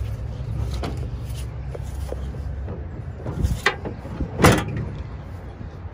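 The rear extended-cab door of a 2000 Chevrolet Silverado 2500 HD being pushed shut: a knock, then a loud slam about four and a half seconds in as the door latches.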